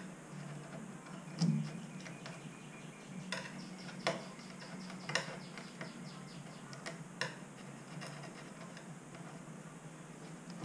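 A metal butter knife scraping and clicking against a metal bus window frame while prying off old sealant: irregular light clicks and short scrapes every second or two.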